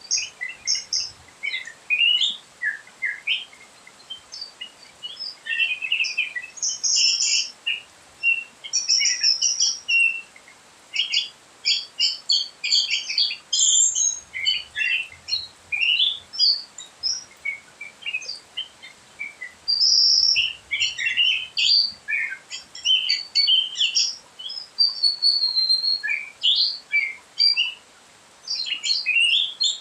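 Birds chirping: a dense run of short, high calls and trills, with brief gaps between bouts.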